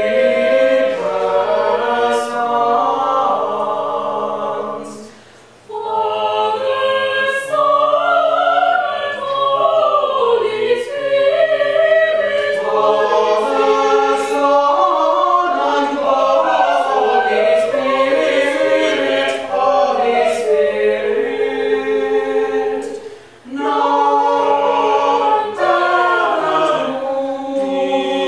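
A small mixed ensemble of men's and women's voices singing in harmony, unaccompanied, with sustained chords that shift in pitch. The singing breaks off briefly twice, about five seconds in and again about twenty-three seconds in.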